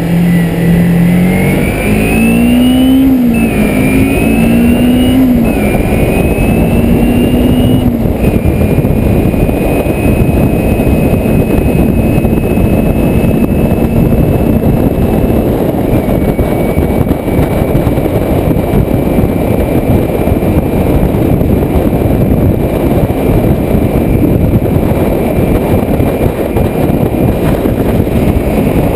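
Kawasaki Ninja motorcycle engine pulling hard and rising in pitch, dropping three times as it is shifted up through the gears, then holding steady at cruising speed. Heavy wind rush on the microphone throughout.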